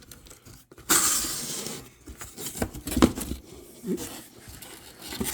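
Packaging being handled during an unboxing: a loud rustle about a second in that fades out, then a few light knocks.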